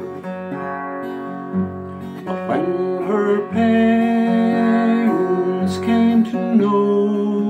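A man singing a traditional Irish ballad to his own acoustic guitar accompaniment. The guitar plays throughout, and a sung line comes in louder around the middle.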